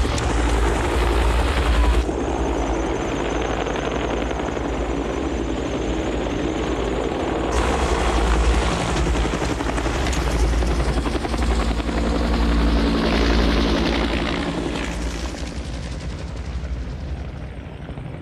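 Bell UH-1 "Huey" helicopters running at lift-off power, a steady heavy rotor throb with turbine noise. The sound changes abruptly twice and eases off over the last few seconds.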